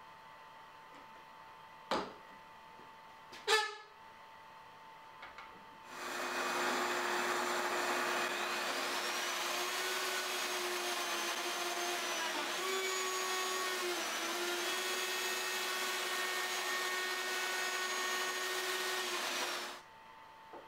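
Plunge router cutting a mortise in a beech bed post through a shop-made jig: it starts abruptly about six seconds in, runs as a loud steady whine for about fourteen seconds with its pitch shifting slightly as the bit cuts, then stops abruptly. Two short sharp knocks come a few seconds before it starts.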